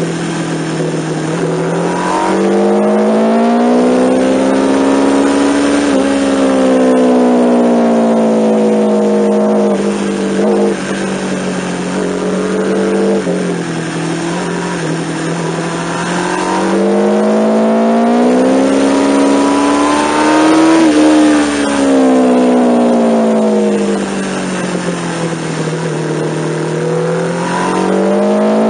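Sport motorcycle engine heard from an onboard camera at track speed, its pitch climbing under hard acceleration and dropping back on braking and downshifts in repeated sweeps through the lap, with a steady rush of wind noise over it.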